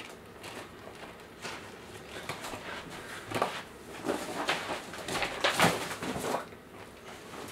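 Rustling and scraping of a light tent's silver-lined fabric cover being pulled and stretched over its frame, in irregular bursts that grow louder in the second half.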